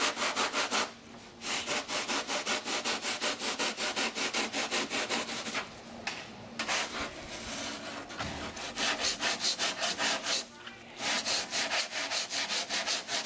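Hand-shaping cured polyurethane foam on a fiberglass engine cowl: a serrated blade, and later a sanding board, rasped quickly back and forth over the foam, about four or five strokes a second, with a few short pauses.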